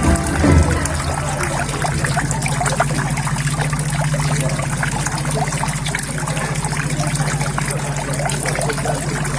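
Water steadily trickling and splashing as it flows into a koi pond, under a low steady hum. There is a brief low thump just under a second in.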